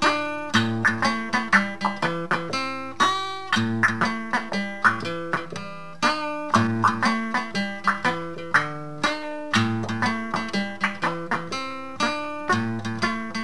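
Instrumental music: a guitar, picked in quick single notes that each ring and fade, several a second, without singing.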